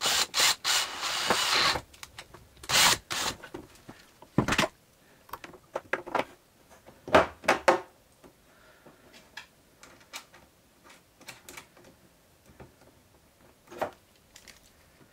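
A cordless drill boring a hole in the print processor's housing for about two seconds at the start, then scattered clicks and knocks as parts and tools are handled.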